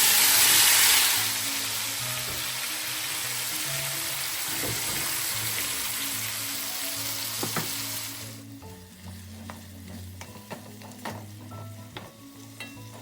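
Marinated chicken feet going into hot curry oil in a pot and sizzling: loudest in the first second, then a steady sizzle that cuts off about eight seconds in, leaving only soft clicks and clatter.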